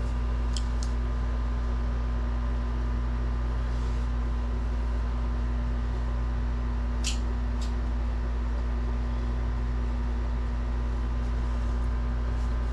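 A steady low hum at an even level, with a few faint short clicks about half a second in and twice around seven seconds in.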